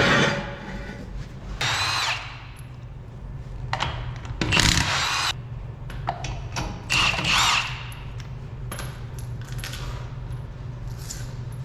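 Power tool running in about six short bursts, its pitch rising and falling within each, as bolts on the truck's front suspension are worked. A steady low hum runs underneath.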